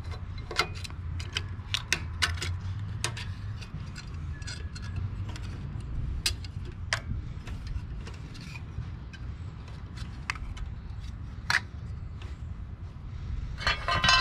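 Irregular light clicks and metallic clinks of hand tools and small parts being worked loose on a Briggs and Stratton small engine's air cleaner and carburetor fittings, with a louder rattle near the end.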